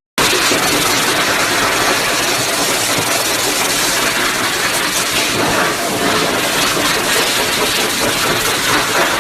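Pet hair dryer blowing steadily, a loud even rush of air with a motor hum underneath, as a cat is dried after its bath.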